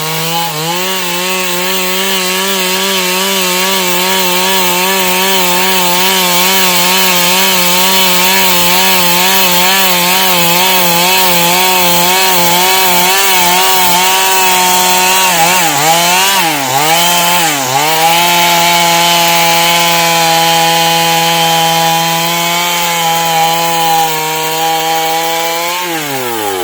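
Stihl two-stroke chainsaw running at full throttle while sawing through wood. Its pitch dips twice about halfway through as the engine bogs under load, then steadies and drops off near the end as the throttle is released.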